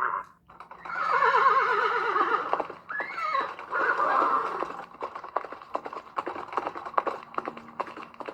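Horse whinnying, a long warbling neigh followed by shorter calls, then hooves clip-clopping in an even rhythm from about halfway through.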